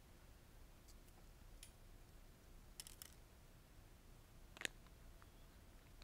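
Near silence broken by a few faint, sharp clicks and taps from handling a plastic takeout tray and its packaging, the loudest click about two-thirds of the way through.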